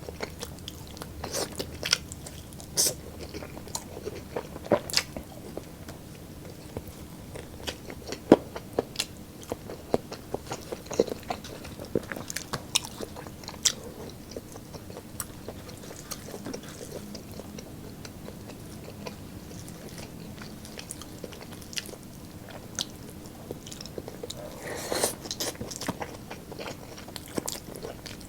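Close-up eating sounds: biting and chewing roast pork ribs and chicken with crispy skin, with irregular sharp crunches and wet chews and a denser run of crackling about three quarters of the way in.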